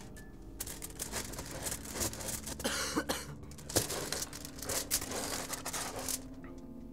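Foil-wrapped box being handled and settled onto a cylinder: crinkling and rustling of the foil with several light knocks, from about half a second in until about a second before the end.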